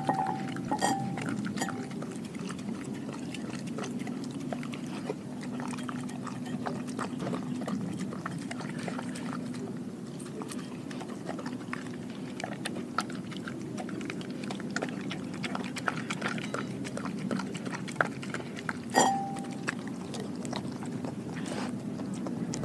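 German shepherd mix licking and lapping the last of his food out of a glass bowl: a busy run of small wet clicks and slurps. Twice, near the start and again about nineteen seconds in, the glass is knocked with a sharp clink that rings briefly.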